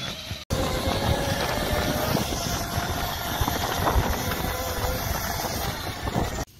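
Small OSET electric trials bike riding across grass: a faint motor whine that wavers in pitch over a steady rushing noise and an uneven low rumble. The sound drops out for a moment about half a second in.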